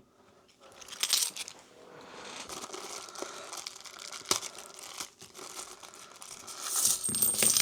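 Plastic bag of 50p coins crinkling and tearing as it is handled and opened, with a few sharp clicks; the rustling grows louder near the end.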